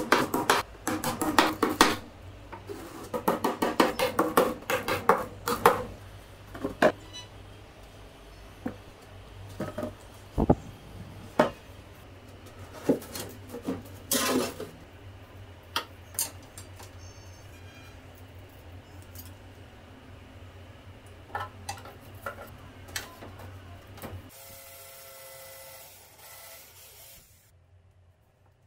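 Claw hammer driving small nails into the chipboard bottom of a drawer box: quick runs of taps early on, then scattered single knocks. A wooden drawer slides into its cabinet with a scrape and knock about halfway through.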